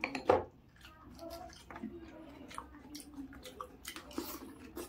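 Close-up eating of pani puri: a sharp crack a third of a second in, then scattered crackles, clicks and wet chewing sounds of crisp puri shells and watery filling.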